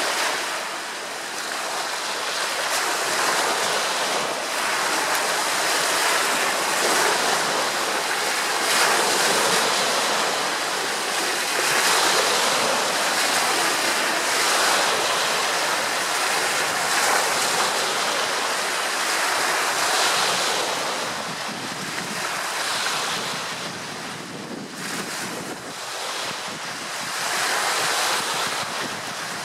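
Choppy, wind-driven waves splashing and lapping, with wind gusting across the microphone. The sound swells and eases slowly with the gusts.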